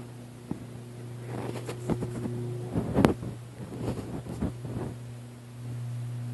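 A steady low electrical hum, with a run of knocks and clanks from about a second in until about five seconds in. The loudest knock comes about three seconds in.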